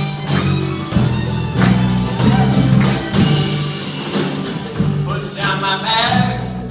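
Live band music: a bass line under a steady drum beat, with a singing voice coming in about five seconds in.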